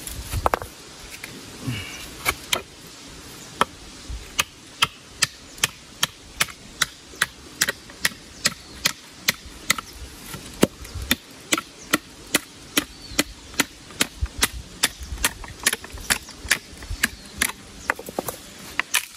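Chopping into a piece of firewood with a blade: sharp wooden strikes, a few at first, then about two to three a second. The wood is being split open to see whether it is dry inside beneath its damp surface.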